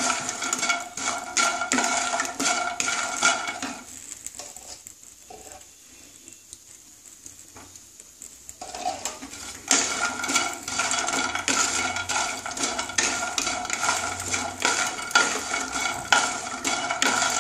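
Wooden spatula stirring and scraping bori (lentil dumplings) around a nonstick kadai as they fry in mustard oil: a quick run of scrapes and light knocks. It stops for about six seconds a few seconds in, leaving only a quiet background, then resumes.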